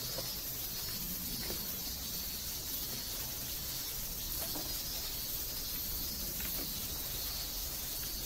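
Steady, high-pitched shrilling of insects in the open field, with a low rumble underneath and a few faint soft knocks.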